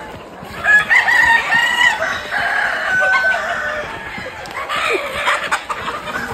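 A flock of desi chickens calling loudly over one another as men rush in to catch them, with short knocks of running feet near the end.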